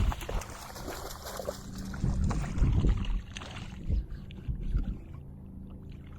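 Water and handling noise aboard a fishing kayak: a rush of splashing water for the first half, with scattered low knocks against the hull.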